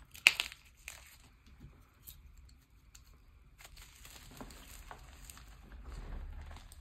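Hand crumbling and squeezing powdery reformed gym chalk: one sharp click about a quarter second in, a quiet spell, then soft crunching and crumbling from about halfway on.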